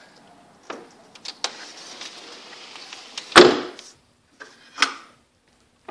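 A window sash sliding along its track with a rushing hiss and a few light clicks, then stopping with a sharp knock, the loudest sound here. A second, smaller knock follows about a second and a half later.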